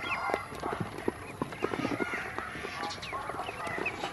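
A group of ducklings peeping in short, high chirps while they peck feed from a plastic basin, their bills tapping quickly and irregularly on the plastic.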